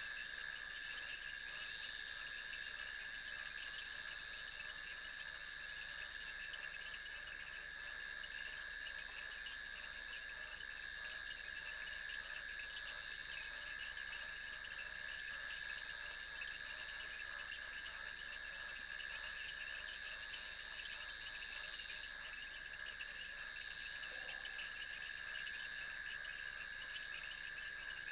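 Steady night-time chorus of insects: continuous high trilling at two fixed pitches, one lower and one higher, over a fizzing hiss of many more callers.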